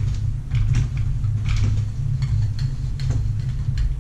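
Plastic clicks and rattles of an AmazonBasics 60-inch lightweight tripod's head and centre column being handled and adjusted, a few irregular clicks each second over a steady low hum.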